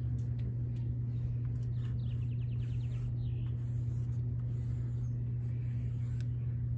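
A steady low hum throughout, with a short rapid bird trill about two seconds in.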